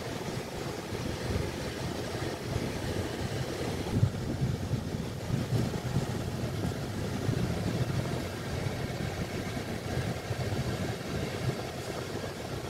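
A car's engine and tyre noise heard from inside the cabin, a low, steady drone.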